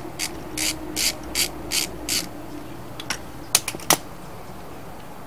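A ratchet wrench clicking in short bursts, about two or three strokes a second, as it loosens a motorcycle engine's oil drain plug. The clicking stops about two seconds in, and a few sharp metallic clicks follow near the middle.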